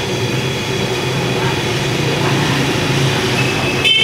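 Large stockpot of water at a hard rolling boil: a steady rumbling roar. Just before the end, a short high ringing tone starts.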